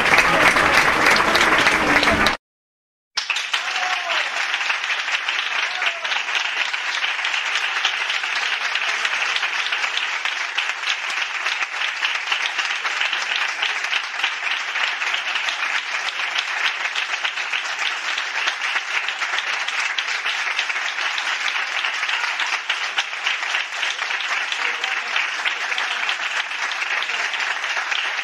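Audience applause sound effect: a louder crowd clip cuts off about two seconds in, and after a short silence a long, steady round of applause from many people clapping begins and holds evenly.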